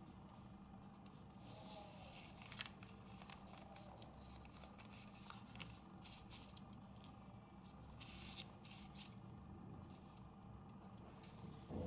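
Faint scratchy rustling and light ticks of a paper origami spinning top being twisted by hand and spinning on a paper-covered table, over a steady low hum.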